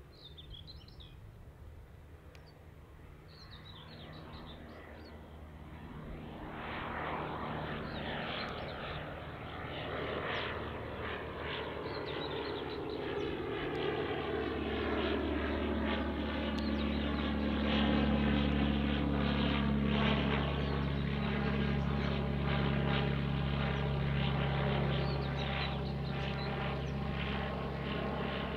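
Single-engine propeller light aircraft taking off and climbing out, its engine and propeller drone growing from faint to loud over the first fifteen seconds or so, then holding steady and strong as it passes overhead.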